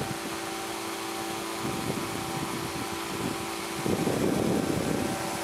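Powered parachute's engine and propeller running steadily in flight, a constant drone with a rushing hiss over it, growing louder and rougher for about a second, about four seconds in.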